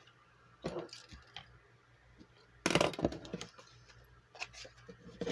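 Paper rustling and small clicks from handling and marking paper challenge sheets, in scattered short bursts, the loudest about three seconds in.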